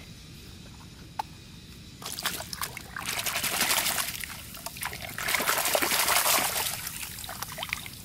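Water splashing and sloshing as a hand swishes a plastic toy through shallow muddy water, in two bouts about three and five seconds in.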